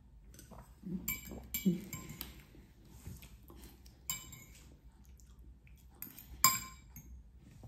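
Cutlery clinking against a dish while pasta is eaten: several sharp, ringing clinks, the loudest about six and a half seconds in.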